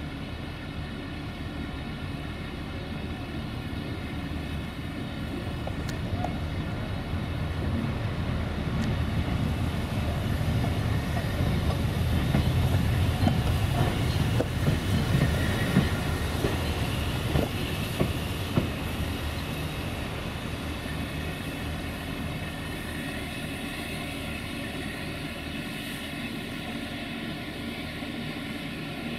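GNR V class 4-4-0 compound steam locomotive No. 85 'Merlin' moving slowly past: wheels rumbling and knocking on the rails with steam hissing, growing louder to a peak about halfway through with a few sharp clanks, then easing off.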